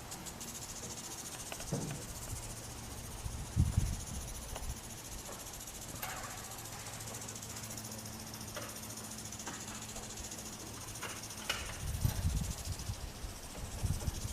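A steady high-pitched chirring, typical of insects, over a faint low hum, with a few scattered knocks and clunks.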